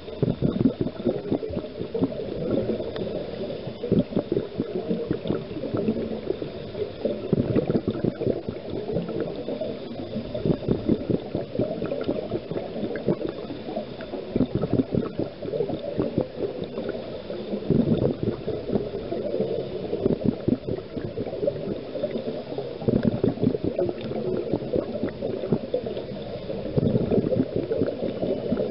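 A scuba diver's exhaled bubbles gurgling and crackling from the regulator, heard underwater, swelling in louder surges every few seconds.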